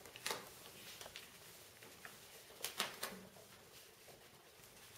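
A few faint crackles and ticks of a plastic laminate sheet being handled as its release liner is peeled back by hand.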